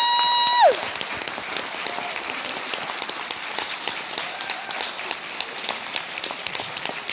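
Audience applauding steadily after a performance, opening with the end of a loud, high-pitched cheer that cuts off within the first second.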